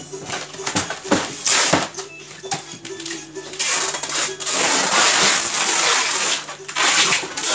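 Plastic wrap crinkling and rustling as hands press and smooth it inside a styrofoam box, with scattered clicks and knocks against the foam. It gets denser and louder over the second half.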